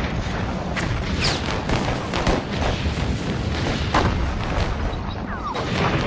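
Battlefield sounds of artillery explosions and gunfire: a dense run of blasts over a low rumble, the loudest about four seconds in, with a short falling whistle about five and a half seconds in.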